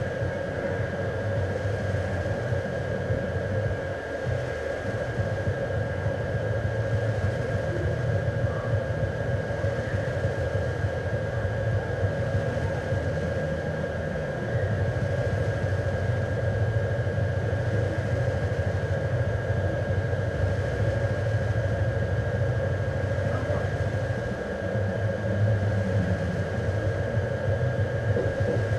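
A steady low rumbling drone like a running machine or fan, with a thin constant whine above it; the rumble dips briefly about every ten seconds.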